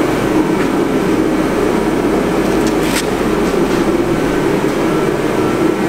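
A steady mechanical drone at an even level, with a couple of faint clicks.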